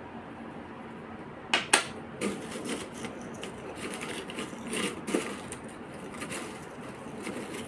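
Two sharp clicks about a second and a half in, then crisp fried snack chips crackling and rustling as hands stir and sift them in a plastic bowl.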